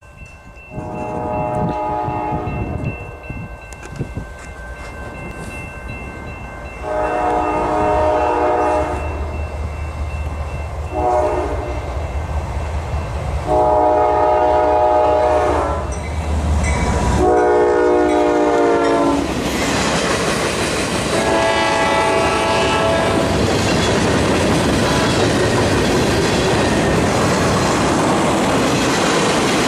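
A CSX GE ES40DC locomotive sounds its air horn for the grade crossing in five blasts, long, long, short, long, long, with the last blast falling in pitch as the engine passes. Its diesel engine drones underneath. Then the freight cars roll by with a steady rumble and clickety-clack of wheels on the rail joints.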